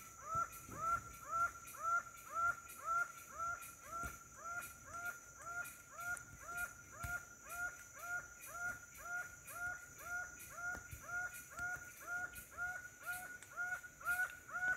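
An animal call, a short note that rises quickly and then holds, repeated evenly about twice a second without a break.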